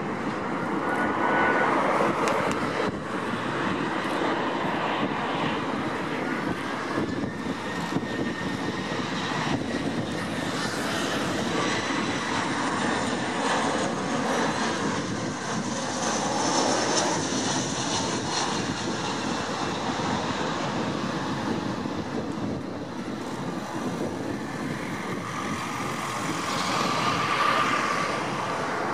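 Airbus A340-300's four CFM56 turbofan engines at approach thrust: a steady jet rumble with a high engine whine that glides slightly in pitch. Near the end the airliner touches down on the runway.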